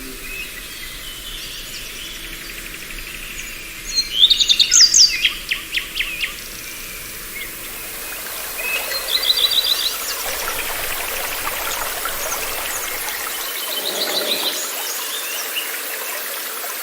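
Birds chirping and trilling over a steady hiss of outdoor ambience, with a loud cluster of rapid high chirps about four seconds in and further bursts of calls around nine and fourteen seconds.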